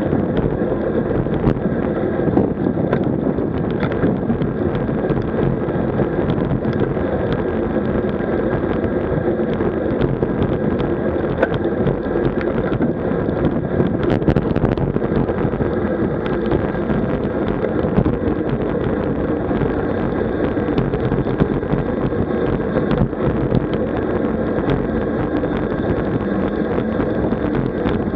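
Steady wind rush on a camera microphone riding along on a road bike at speed, with the road and drivetrain noise of the bike underneath.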